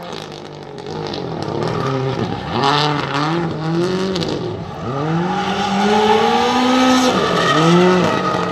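Drift car's engine revving in repeated rising sweeps, the pitch dropping off sharply between them, with the tyres squealing as the car slides sideways.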